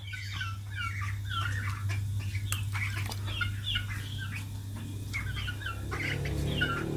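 Many small birds chirping in quick, overlapping short calls, with a steady low hum underneath.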